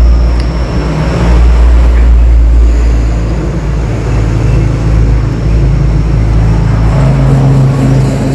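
Motor vehicle engine running close by: a loud, steady low rumble whose note shifts slightly about seven seconds in.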